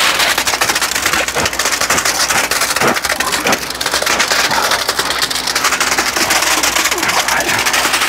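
Wet concrete pumped through a concrete pump hose and pouring into a shuttered foundation trench: a continuous gritty, crackling hiss.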